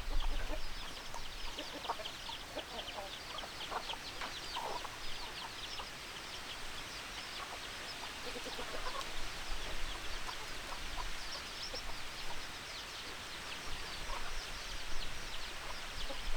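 A flock of chickens clucking, with many short, high calls running all through and lower clucks scattered in the first few seconds.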